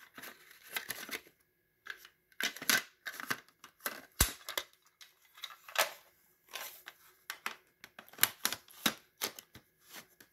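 Plastic cassette cases clicking, rattling and scraping as they are handled and sorted, an irregular run of small clicks with a sharper knock about four seconds in.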